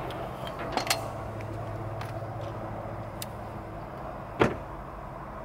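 A single shot from a suppressed, scoped rifle about four and a half seconds in, a short sharp crack, over a steady low hum. A couple of faint clicks come about a second in.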